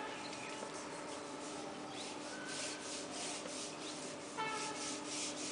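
Rubbing and rustling handling noise from a handheld video camera being carried while walking, with a run of quick scuffs a few seconds in over a faint steady hum. A short, high-pitched call sounds about a second before the end.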